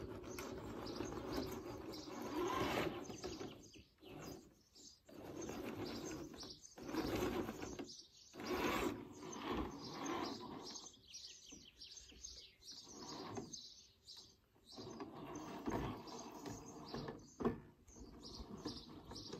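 Electric drive of an Absima Yucatan RC crawler whining in stop-start throttle bursts with short pauses as it climbs concrete steps, tyres scrabbling on the concrete, with a sharp click near the end.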